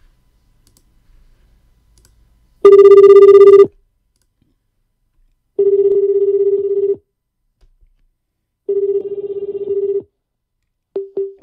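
Ringback tone of an outgoing call placed from a FireRTC web phone: three rings about three seconds apart, each a steady buzzing tone of about a second. The first ring is the loudest and distorted, and two short blips of the same tone follow near the end.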